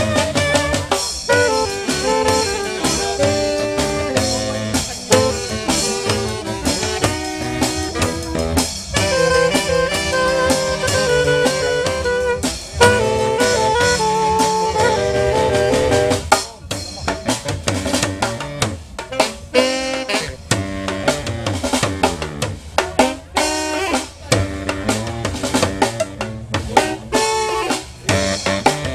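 A live band of saxophones and other horns playing a tune over a drum beat. About halfway through the horns thin out and the drum strokes stand out more.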